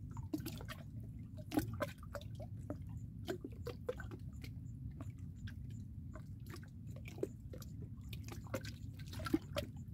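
Shallow water lapping softly, with scattered small drips and clicks over a low steady rumble.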